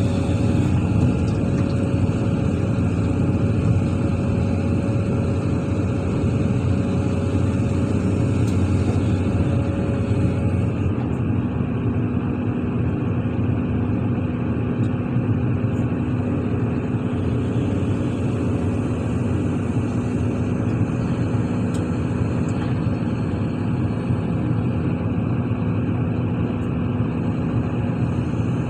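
Heavy diesel engine of a SANY SY365H Pro excavator running steadily under working load, with a slight shift in its note about ten seconds in.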